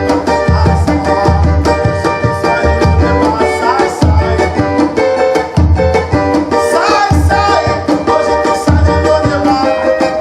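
Pentecostal 'corinho de fogo' music: a cavaquinho strummed over a tantan drum beating a steady pulse.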